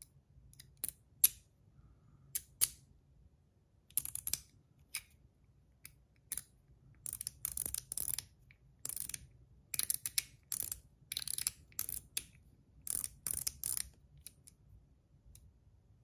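Metal Toys DZ zirconium Top D fidget, its two crossed bars being turned and flicked about their pivot. It gives irregular sharp metallic detent clicks and quick rattling runs of clicks, the zipper function. The clicks are sparse at first and come thick and fast through the middle, then thin out near the end.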